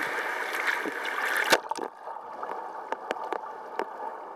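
River water rushing and splashing past the side of an inflatable raft, heard close to the water's surface. A sharp knock comes about a second and a half in, after which the rushing turns duller and quieter, with a few scattered sharp clicks.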